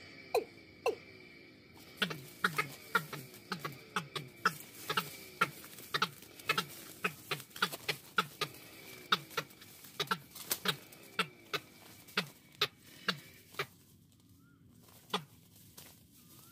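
Watercock calling: a regular series of sharp knocking notes, each followed by a low falling tone, about two a second, which stops about three-quarters of the way through. Faint short whistled notes follow near the end.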